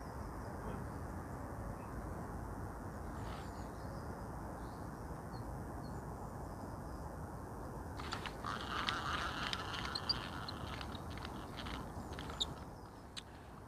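Steady outdoor background hiss at the riverbank. From about eight seconds in, bird calls and a scattering of light clicks are added.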